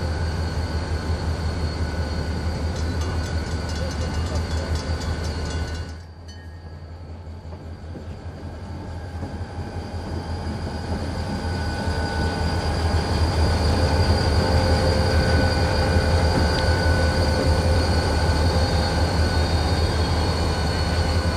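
Wheeling and Lake Erie diesel freight locomotive 7019 working a train of rock hopper cars, with a steady low rumble. The sound drops suddenly about six seconds in, then builds over several seconds and stays steady and loud.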